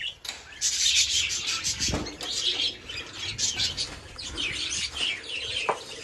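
Many small aviary birds chirping in quick, overlapping calls. There is a soft knock about two seconds in.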